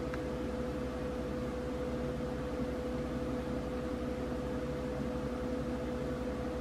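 Steady background hum and hiss with one constant mid-pitched tone, unchanging throughout; no distinct event.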